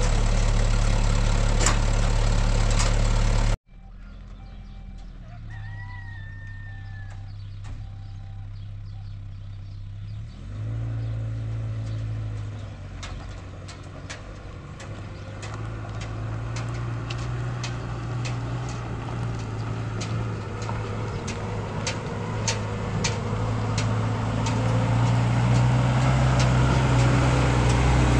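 A vehicle engine running steadily, cutting off abruptly a few seconds in. After a quiet stretch with a short bird call, an engine starts up again about ten seconds in and grows gradually louder toward the end.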